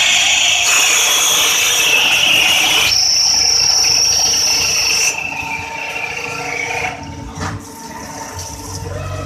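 CNC drilling, milling and tapping machine cutting a faucet part: a loud, high-pitched cutting whine over a steady hiss. The pitch steps up about three seconds in, the sound drops in level about five seconds in and again a couple of seconds later, and there is a brief knock near the end.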